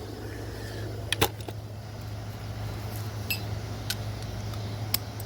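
Sharp metal clicks and clinks from a hand tool and bolts while a charging coil is tightened down on a small engine: one louder clink about a second in and a few lighter ticks later. A steady low hum runs underneath.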